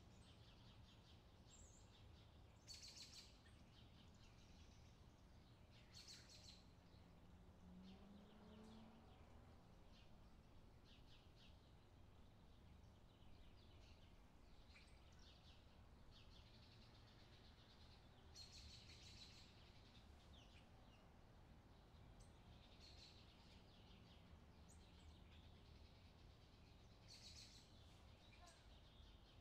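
Faint beach ambience: scattered bird chirps over a low steady rumble, with a few louder bursts of chirping.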